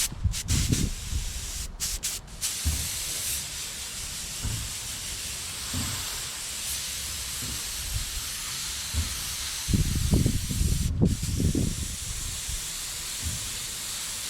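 Primer being sprayed onto a car body panel: a steady spraying hiss that stops briefly a few times in the first two and a half seconds and once about eleven seconds in. Wind gusts buffet the microphone, most strongly around ten to twelve seconds in.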